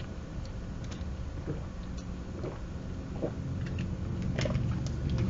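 Low steady rumble of a room air conditioner, growing louder near the end as it kicks on, with a few faint clicks.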